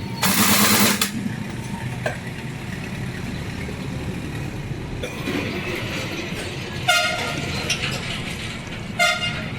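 A short loud hiss of air near the start, then two short vehicle horn toots about two seconds apart, over a steady low rumble of engines.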